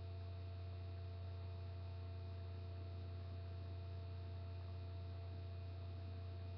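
Steady low electrical hum with a few faint higher steady tones over an even hiss. It is the constant noise floor of a webcam microphone, with no distinct events.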